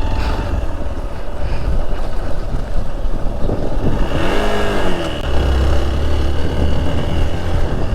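Hero XPulse off-road motorcycle's single-cylinder engine running under load on a rough dirt trail, with heavy low rumble. The rumble grows heavier about five seconds in, after a brief rising-and-falling tone.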